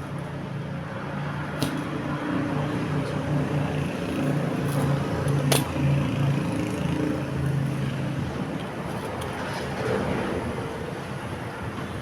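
A motor vehicle engine running steadily and growing louder through the middle, with a few sharp clicks over it.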